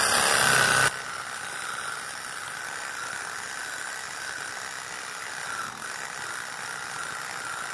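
Cordless 18-volt reciprocating saw running with its blade cutting through a tree log, a steady mechanical sound. About a second in the level drops sharply, and the sawing goes on more quietly and evenly.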